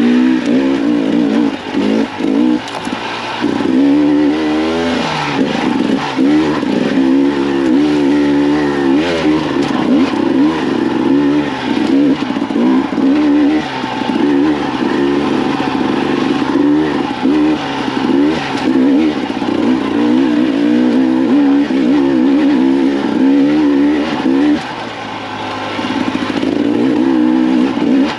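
2024 Husqvarna TE300's two-stroke engine being ridden hard, revs rising and falling constantly with throttle changes, easing off briefly near the end before picking up again.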